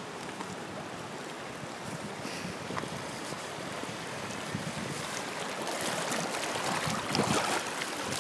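Rushing brown floodwater: a steady wash of water noise that grows louder over the second half.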